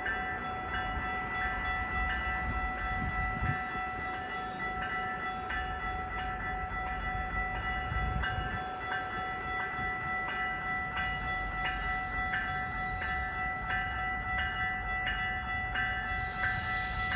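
GO Transit train moving through the station with a bell ringing steadily, about two strikes a second over a constant ringing tone, above the low rumble of the train.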